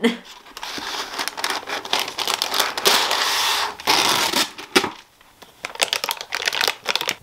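Irregular crinkling and rustling with many light clicks and taps, as of materials being handled on a work table, pausing briefly about five seconds in.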